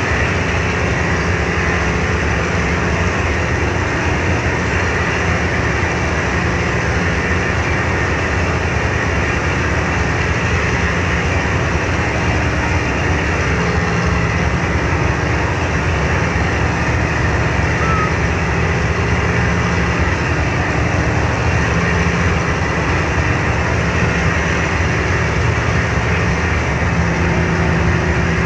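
Car ferry's engines running steadily under way, a low drone with an even rushing noise of wake and wind over it.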